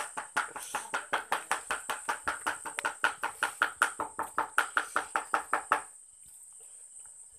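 Knife chopping on a wooden board: fast, even strokes about five a second that stop about six seconds in. A steady high chirring of crickets runs underneath.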